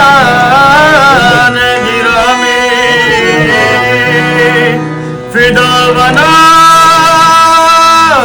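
Qawwali music: a singer holding long, wavering wordless notes over a steady instrumental accompaniment, with a brief break about five seconds in before the voice comes back.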